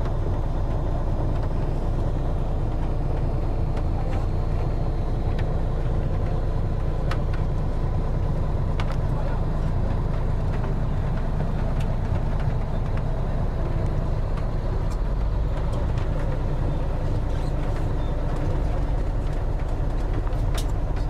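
Steady low rumble of a bus's engine and road noise, heard from inside the passenger cabin, with a few light clicks or rattles.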